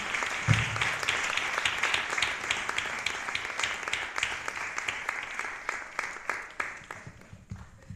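Audience applauding, the clapping dying away near the end, with a low thump about half a second in.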